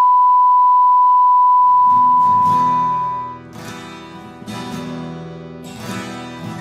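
A loud, steady, single-pitched electronic beep like a test tone, held for about three seconds before fading out. Acoustic guitar music with strummed chords comes in under it about two seconds in and carries on.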